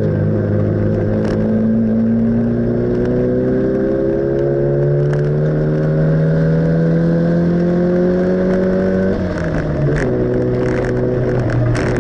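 Car engine heard from inside the cabin during a circuit lap, pulling steadily up through the revs for about nine seconds. The revs then drop sharply and the engine runs on at a steadier pitch.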